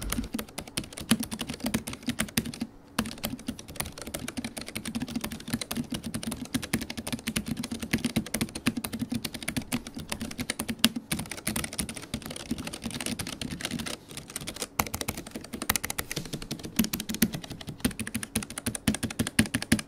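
Typing on a Keychron K7 low-profile keyboard fitted with Keychron low-profile optical Mint switches, which are linear: a fast, continuous run of keystrokes with a brief pause about three seconds in and another near fifteen seconds.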